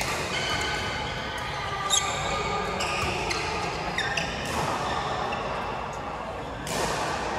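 Badminton play: sharp racket-on-shuttlecock hits, the loudest about two seconds in, among short high squeaks of shoes on the court floor.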